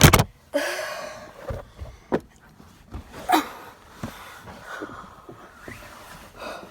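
A child car seat being shaken and tested for movement: a sharp knock at the start, then scattered knocks, clicks and rustling, with heavy breathing from the effort.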